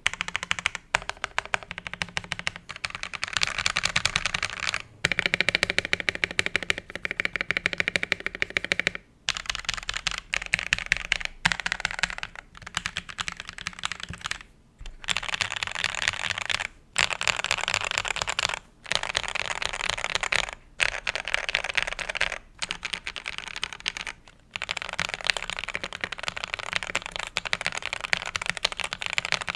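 DK87 custom mechanical keyboard with KTT Kang White linear switches being typed on: a fast, steady stream of keystrokes broken by short pauses every few seconds.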